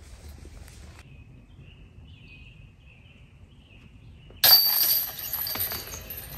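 Disc golf basket chains struck by a long putt from a Latitude 64 Pure putter: a sudden loud metallic jingle about four and a half seconds in, ringing away over a second or so.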